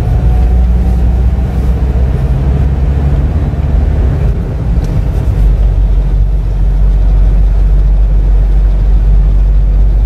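A motor vehicle driving along a paved road: a steady low rumble of engine and road noise.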